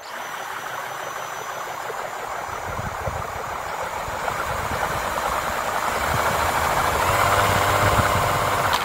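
Power drill spinning a freshly rebuilt Eaton M45 roots supercharger in reverse, its rotors whirring, growing steadily louder and then cutting off at the very end. This is a run-in test for abnormal noise, and it runs pretty smooth, with no metal-on-metal contact.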